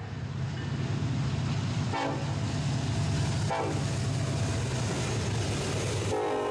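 Freight train's lead diesel locomotives passing close, their engines rumbling loudly with the wheels on the rails. The locomotive horn sounds briefly about 2 and 3.5 seconds in, then a long blast starts about 6 seconds in.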